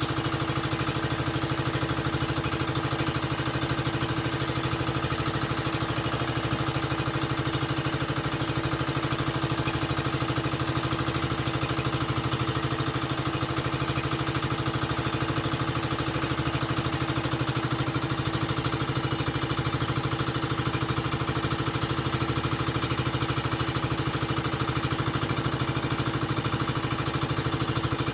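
A small engine running steadily at an even speed, with a fast regular firing beat.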